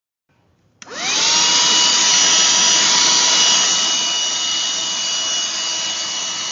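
Black+Decker Dustbuster cordless handheld vacuum switched on: its motor whine rises quickly as it spins up, then runs steadily at a high pitch over the rush of air.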